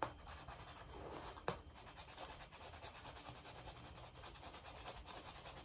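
Edge of a scissor blade scraping at the scratch-off coating on a paper card: faint, fast scratching strokes, with a single click about a second and a half in.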